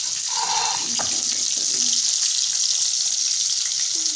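Spice-coated fish pieces deep-frying in hot oil in a kadai, with a steady high sizzle. A sharp click about a second in.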